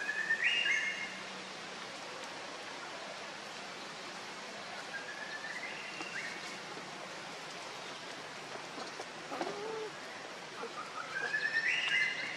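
High, rising whistled animal calls that step up in pitch at the end, three times about five to six seconds apart, over a steady hiss of forest background. A shorter, lower call comes about nine seconds in.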